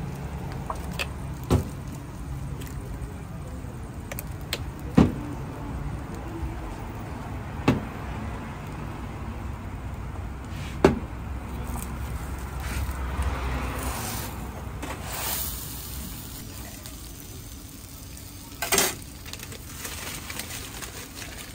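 Food sizzling on a hot cooking plate, with five sharp knocks spread through, the loudest about five and eleven seconds in.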